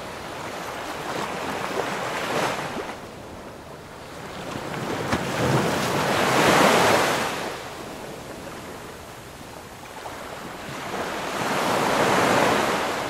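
Ocean surf: waves rushing and breaking in slow swells, three times, the middle one the loudest.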